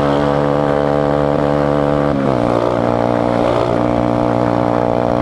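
Motorcycle engine heard from the rider's seat, running at a steady cruise over a hiss of wind and wet road. About two seconds in, the engine note drops to a lower pitch, then holds steady.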